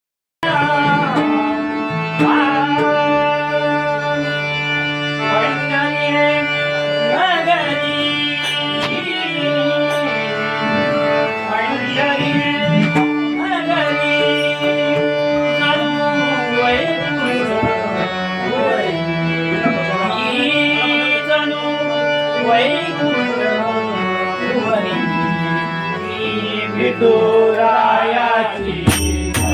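Marathi devotional abhang (bhajan) opening: a male singer holds and bends long melodic notes over a harmonium-like accompaniment and a steady drone. Sharp percussion strokes come in near the end.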